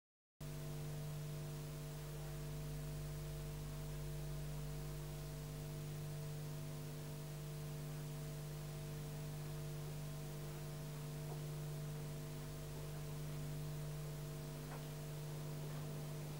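Steady electrical mains hum with background hiss, cutting in suddenly from dead silence just after the start.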